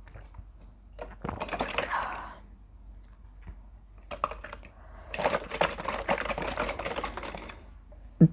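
Juice being chugged: two stretches of rapid, clicking gulps and swallows. A single short, loud, low sound comes right at the end.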